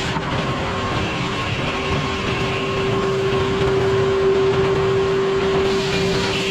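Sawmill running steadily while milling poplar, a continuous mechanical noise with a steady hum that grows louder through the middle and eases off near the end.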